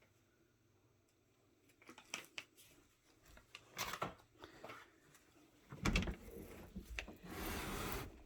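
Closet door being handled: a few light clicks and knocks, a loud thump about six seconds in, then about a second of scraping near the end as the door drags over carpet.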